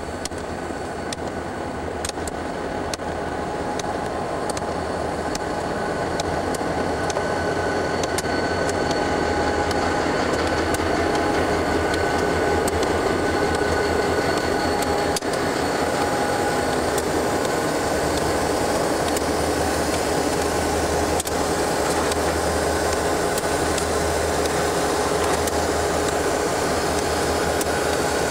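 Diesel-electric freight locomotives running, with a steady low engine rumble and a faint whine. The sound grows louder over the first seconds as a second set of locomotives rolls in beside the helper units, then holds steady.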